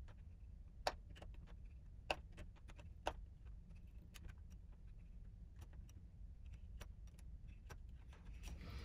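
Hobby-knife blade working at the sealed seam of a plastic cassette shell to break it apart: scattered small clicks and ticks of plastic, with three sharper cracks in the first few seconds, over a faint low hum.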